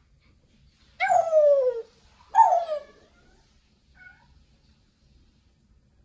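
African grey parrot giving two drawn-out calls, each sliding down in pitch, the second a little over a second after the first, then a faint short call a moment later.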